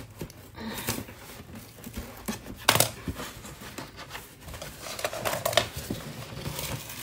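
Scissors cutting along the paper-taped seam of a cardboard box, then fingers picking, scraping and tearing at the stiff paper tape and cardboard: scattered snips, rustles and snaps, the loudest a sharp one a little under three seconds in.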